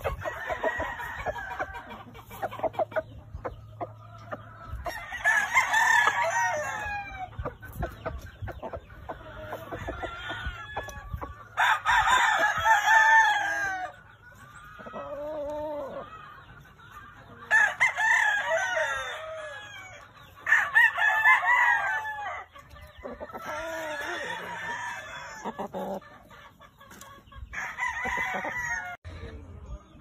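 Gamefowl roosters crowing again and again, about six crows over the stretch, with chickens clucking between them.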